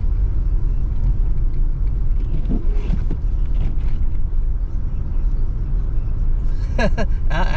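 Steady low rumble of a car driving, heard from inside the cabin. Voices begin near the end.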